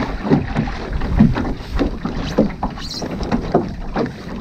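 Water slapping and splashing irregularly against the hull of a small sailing boat under way, over a steady rush of wind on the microphone.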